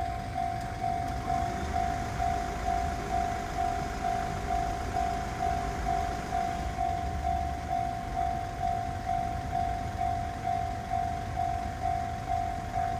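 Railway level crossing's electronic warning bell ringing steadily at about two strokes a second. Under it is the low rumble of an approaching Sotetsu 10000 series electric train.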